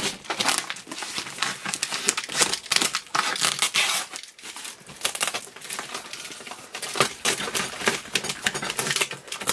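Clear plastic stretch wrap and packing tape crinkling and crackling irregularly as hands pull and pick at a heavily wrapped cardboard box, with a brief lull about four seconds in.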